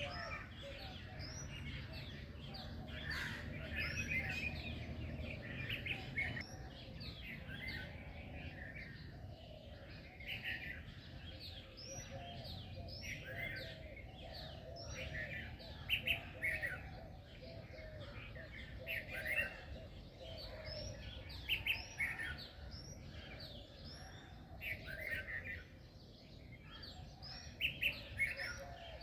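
A chorus of many songbirds chirping and trilling in quick, overlapping short calls, over a faint low rumble.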